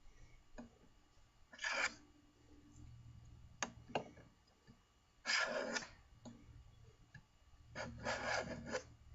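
Sargent block plane taking three strokes across wood, each a short scraping hiss as it cuts a fine shaving from a freshly adjusted blade. A couple of light clicks come between the first and second strokes.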